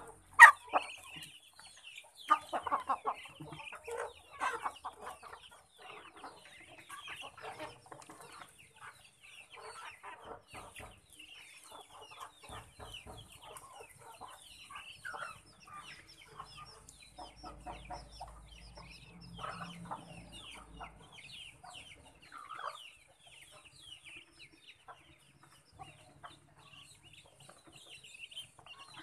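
A flock of chickens clucking continuously while feeding, with many short high calls mixed in. The clucking is loudest in the first few seconds. A single sharp knock sounds right at the start.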